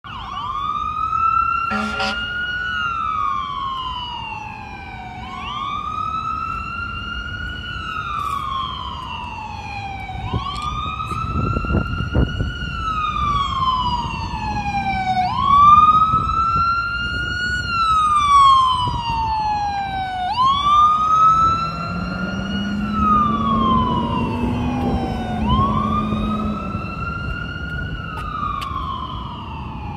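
Fire-rescue ambulance's electronic siren on a slow wail, each cycle rising quickly and then falling slowly, about every five seconds. A brief honk about two seconds in, and engine and traffic rumble underneath.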